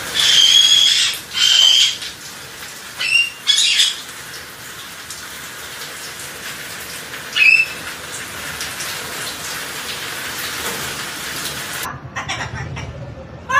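Parrots squawking in steady rain: two loud shrill squawks in the first two seconds, two more around three to four seconds in, and a single one about seven seconds in, over the constant hiss of the rain.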